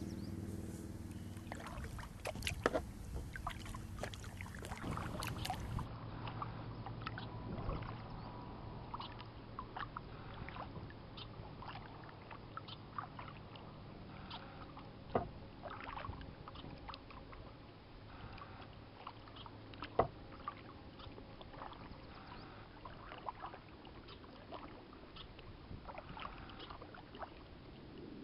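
Kayak being paddled on calm water: paddle strokes with water dripping and splashing, and scattered light knocks and clicks, with a few sharper knocks among them. A low steady hum sounds under it for the first several seconds.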